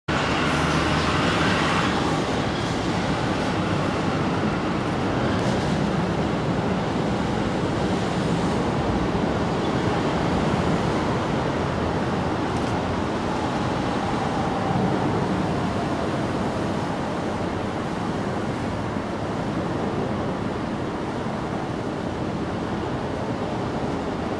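Steady background rumble and hiss, a little louder in the first two seconds, with a few faint clicks.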